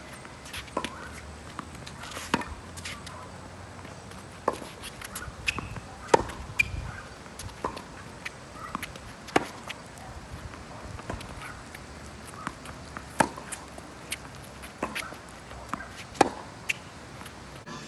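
Tennis balls being struck by rackets and bouncing on the court during play: sharp, short pops every second or two over a quiet outdoor background.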